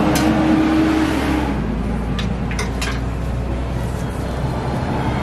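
Metal spatula clicking a few times on a flat-top griddle about two to three seconds in, over a steady rumble of passing road traffic.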